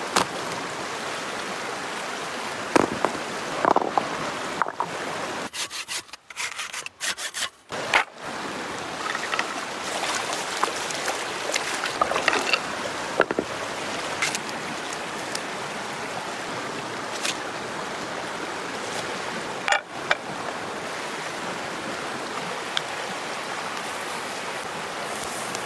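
Shallow mountain stream running over rocks, a steady rush of water. Now and then come knocks, splashes and rubbing from corn being washed and handled at the water's edge. The water sound cuts out briefly a few times around six to eight seconds in.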